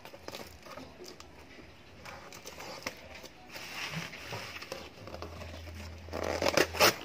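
Box cutter scraping and slitting the packing tape on a cardboard box while the surrounding bubble wrap and plastic crinkle under the hands, with two sharper scrapes near the end.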